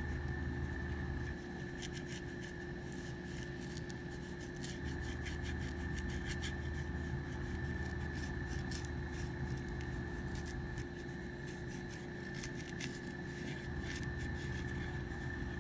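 Alcohol swab scrubbing over a Glock 19's polymer grip frame to clear grip-tape residue: a run of short, scratchy rubbing strokes over a steady hum.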